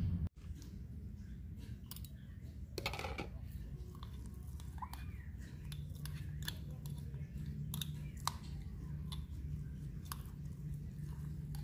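Metal spoon stirring ground chili in a glass jar: gritty scraping with irregular clicks of the spoon against the glass, over a steady low hum.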